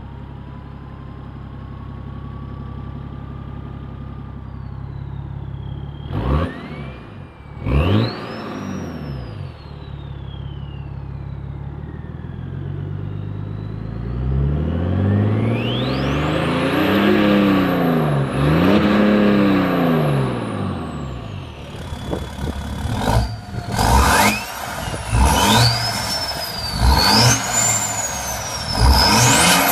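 BMW 3 Series saloon diesel engine running at a steady idle with a faint rising whine, blipped twice, then held high twice with a turbo whistle climbing steeply. After a cut near the end, a second diesel SUV's engine is revved in several quick blips, each with a rising turbo whistle.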